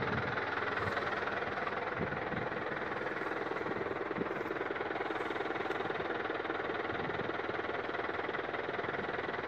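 Tractor engine idling steadily, a constant running sound with a fine, even rhythm.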